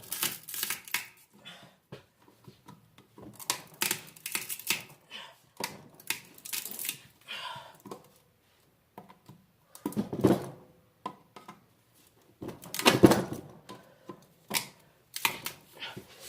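Big flathead screwdriver prying thick copper windings out of an electric motor: irregular metal clicks, scrapes and knocks, with louder clanks about ten and thirteen seconds in.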